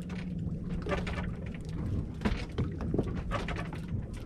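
Sea water lapping and splashing against the hull of a small fishing boat, in irregular crackly bursts over a steady low hum.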